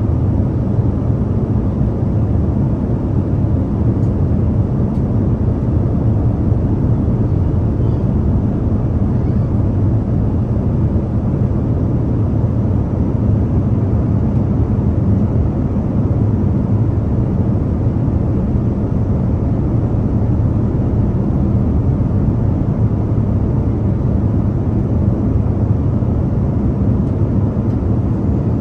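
Airplane cabin noise in flight: a steady, even low rumble of engines and airflow that holds unchanged throughout.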